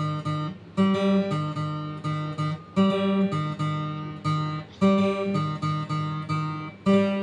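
Revel acoustic guitar played note by note in a repeating pattern, each phrase opening with a loud low note about every two seconds and the plucked notes ringing on.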